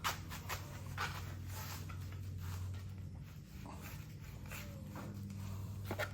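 Light handling clicks and knocks as a bare engine block is turned over by hand at the crankshaft and looked over, a few separate taps over a steady low hum.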